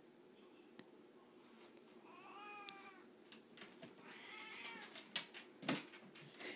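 A cat meowing twice, each a drawn-out call that rises and then falls in pitch, followed near the end by a few sharp knocks.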